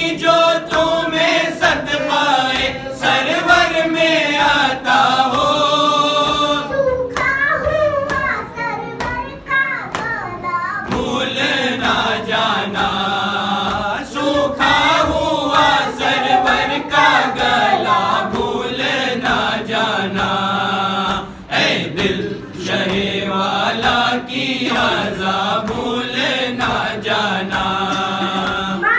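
A boy singing an Urdu devotional poem unaccompanied into a microphone. His sustained lines glide and bend, with short breaks between phrases.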